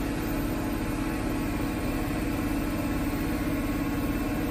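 JCB Fastrac's 6.6-litre AGCO Power diesel engine running steadily at about 2100 rpm under load on a power dynamometer, with a steady droning tone and even pitch throughout.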